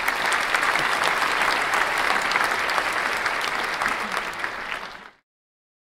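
Applause from a crowd, many hands clapping at once, which cuts off suddenly about five seconds in.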